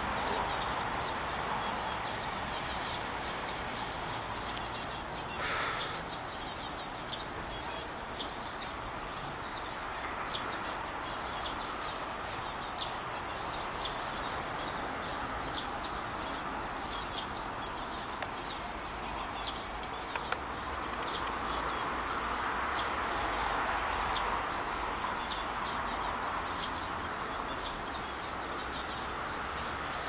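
Japanese tit fledglings calling: thin, high chirps repeated all the way through, several to the second, over a steady rushing background that swells about two-thirds of the way in.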